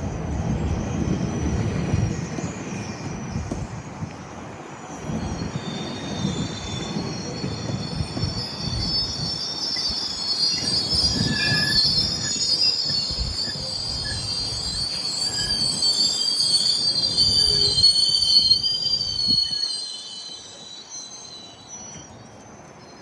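GO Transit commuter train's wheels squealing as it rolls slowly into a station: several high, wavering squeal tones over a low rumble, growing loudest about two-thirds of the way through. Near the end the rumble stops and the sound dies away as the train comes to a halt.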